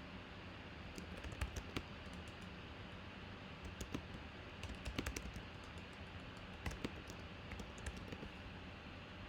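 Typing on a computer keyboard: irregular clusters of key clicks, over a faint steady low hum.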